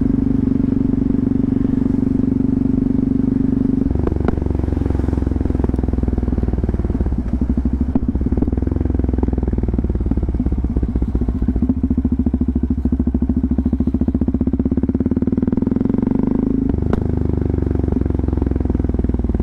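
Yamaha MT-03 motorcycle running under way, mostly exhaust note with little wind noise. The engine pitch changes about four seconds in and again near the end, where a short click comes just before the note shifts.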